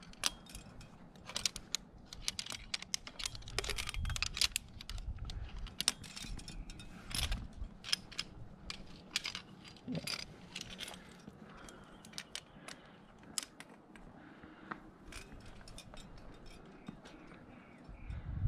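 Carabiners and quickdraws on a climber's harness clinking and jangling as he climbs, in irregular sharp metallic clicks, with low bumps of handling and movement in the first half.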